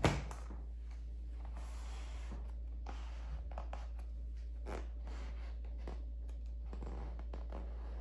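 Refrigerator door shutting with one thunk at the start, then faint rustling and small clicks as a paper towel caught in the closed door's rubber seal is pulled, a test of whether the gasket seals well. A steady low hum runs underneath.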